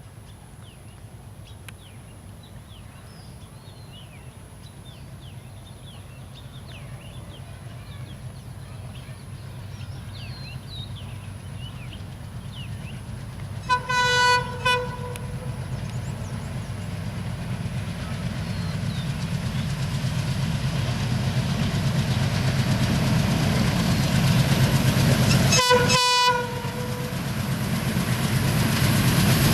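Diesel locomotive of a passenger express approaching, its engine rumble growing steadily louder. Its horn sounds briefly about halfway through and again near the end. Birds chirp faintly in the first half.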